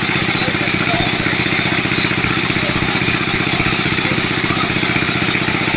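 Small engine of a water pump running steadily at an even, fast beat, pumping water out of the pond.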